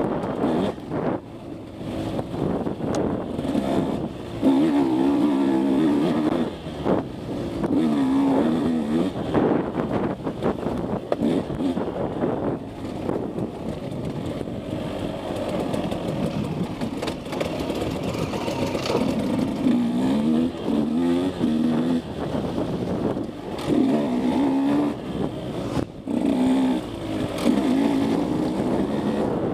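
KTM 150 SX two-stroke dirt bike engine, ridden hard, its pitch rising and falling again and again as the throttle is opened and closed. Short knocks and clatter from the bike run through it.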